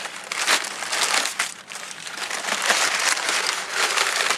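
Crumpled brown packing paper being pulled up out of a shipping box and handled, crinkling and rustling continuously, briefly quieter about halfway through.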